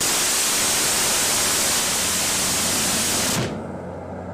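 M61A1 20 mm Gatling gun of a land-based Phalanx (C-RAM) mount firing one continuous burst of about three and a half seconds, the shots so fast they merge into a single sound. The burst cuts off suddenly, and a fainter noise carries on after it.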